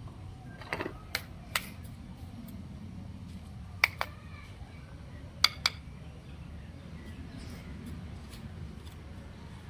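Several sharp clicks or taps over a steady low rumble. Three come about a second in, spaced evenly, then two quick pairs follow around the middle.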